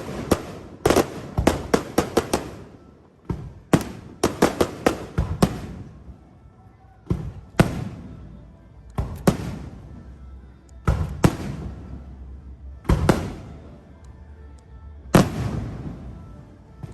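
Fireworks going off: sharp bangs in rapid clusters of several reports, a new cluster every second or two, each trailing off in a low rumble.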